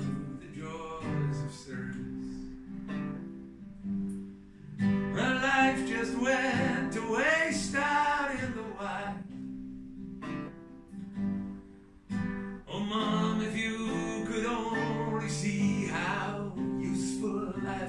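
Solo acoustic guitar playing an instrumental passage, picked and strummed chords, heard unamplified in the room without microphone or amp.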